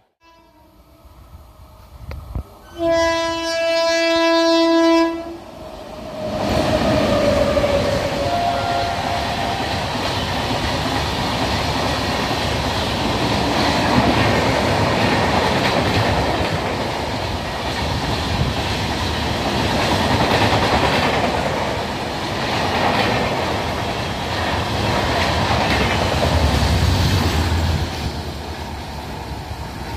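Train horn giving one long blast about three seconds in. Then an express train of LHB coaches runs through at about 100 km/h: a loud steady rush of wheels on rail with clickety-clack, easing off near the end as it recedes.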